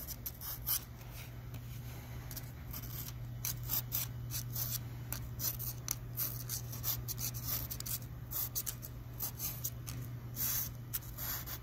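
Small, irregular scratching and rubbing strokes as leftover solder is scraped off the bare die of a delidded Xeon CPU, over a steady low hum.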